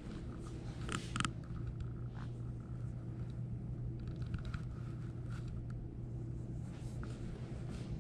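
Steady low hum of indoor room tone, with scattered faint clicks and taps and a short cluster of sharper clicks about a second in.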